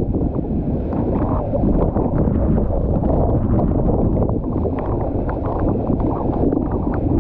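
Wind buffeting the microphone of a camera mounted on a windsurf rig under sail, over the rush of water and small chop slapping against the board.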